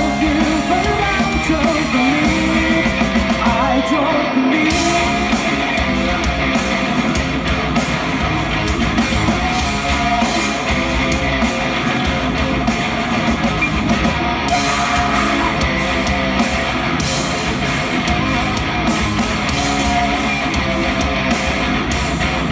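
Live rock band playing loud, guitar-driven music without lyrics, the instrumental close of a song.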